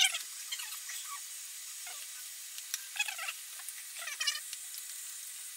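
Small hand screwdriver backing out Torx screws from an iMac G5's frame: scattered clicks and short squeaks of the bit turning in the screw heads.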